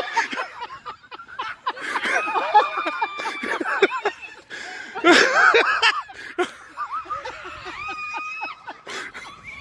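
Men laughing hard, with whoops and a few held high-pitched cries; the loudest burst of laughter comes about five seconds in.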